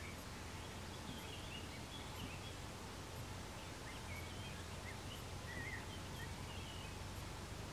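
Faint outdoor ambience: small birds chirping in short, high, twittering calls scattered throughout, over a steady low hiss and hum.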